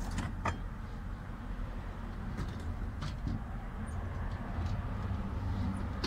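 Steady low background rumble, with a few light clicks and knocks as the plastic fuel pump module is worked loose and lifted in the fuel tank opening. Two of the clicks come close together about half a second in.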